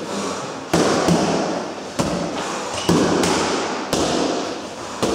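Boxing gloves smacking into focus mitts: about six sharp hits at uneven spacing, each ringing on in the echo of a large room.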